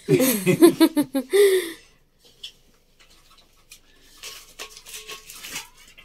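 A person's voice calls out loudly for the first two seconds. Then faint, scratchy rustling from about four seconds in, as bare hands knead crumbly wheat flour and oil into chapati dough in a metal pot.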